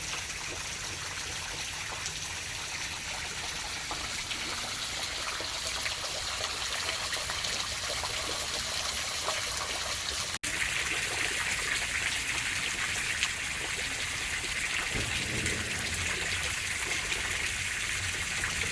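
Water trickling and splashing down a rock cliff in many thin streams, a steady rushing hiss. About ten seconds in it cuts abruptly to a somewhat louder, brighter rush of water.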